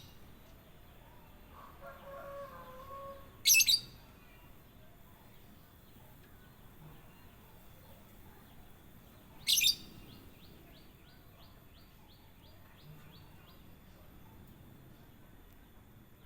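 Kutilang emas, a bulbul, calling: two loud, sharp chirps, a few seconds in and again about halfway. A softer warbling phrase comes just before the first chirp, and a run of quick high ticks, about three a second, follows the second.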